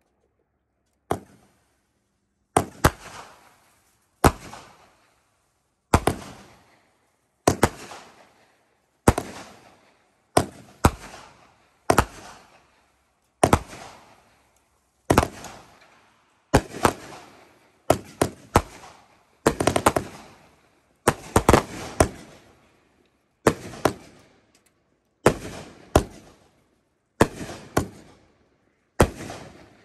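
Consumer aerial fireworks firing in sequence: about twenty sharp bangs, roughly one every second and a half and coming thicker about two-thirds of the way through, each trailing off briefly.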